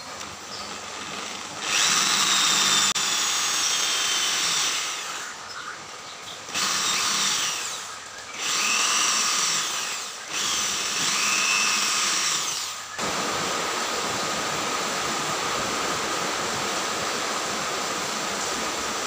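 Electric hand drill running in four bursts of a few seconds each, its pitch rising and falling with the trigger as it bores small holes through wooden ice-cream sticks. About two-thirds of the way in the drilling stops and a steady hiss takes over.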